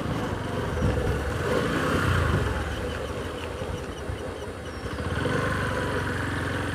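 Motorcycle engine running at low speed while riding, the engine note swelling about two seconds in, easing off, then picking up again after about five seconds.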